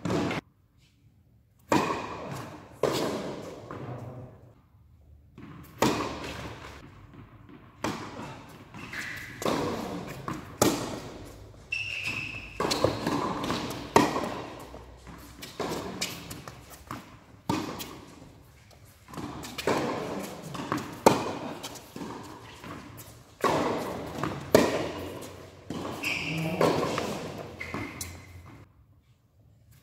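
Tennis rally on an indoor court: a series of sharp ball strikes off rackets and bounces on the court, each echoing in a large hall, with short quiet gaps between points.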